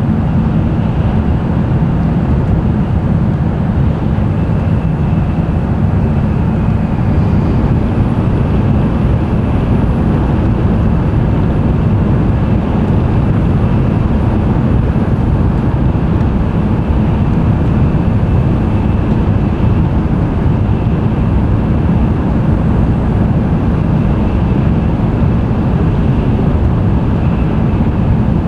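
N700-series Shinkansen train running at speed, heard inside the passenger cabin: a steady, loud running noise, mostly a deep rumble, with a faint high whine over it.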